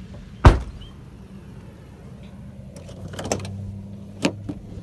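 The rear hatch of a 2003 Dodge Durango being unlatched and opened: one loud clunk about half a second in, then a few lighter clicks and knocks about three and four seconds in.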